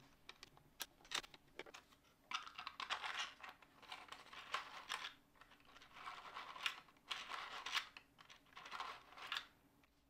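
3D-printed plastic vault-door bolt mechanism worked by hand: the central cog is turned back and forth so the bolts slide out and in. A few light clicks come first, then repeated plastic scraping and rattling strokes about a second apart.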